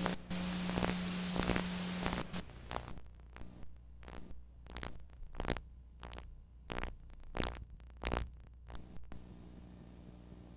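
Steady hiss with a low hum, which drops away after about two seconds into a string of irregular clicks and pops; near the end only a faint hum remains. This is recording noise on a blank stretch after the programme.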